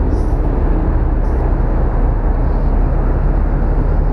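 Steady low engine rumble with a faint hum, running evenly throughout, with a few light handling ticks near the start.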